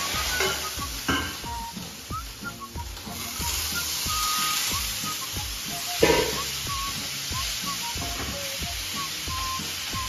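Chicken pieces sizzling as they stir-fry in a pan on a gas stove, stirred with chopsticks that knock against the pan now and then, most sharply about six seconds in. Light background music plays over it.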